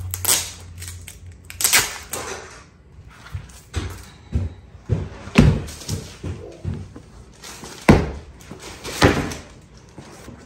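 A new yoga mat being unwrapped and handled: its plastic packaging crinkling and rustling in irregular bursts, with a few dull thumps as the mat is moved.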